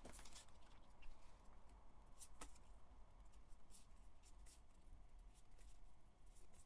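Near silence with scattered faint clicks and slides of a small stack of paper photocards being flipped through by hand.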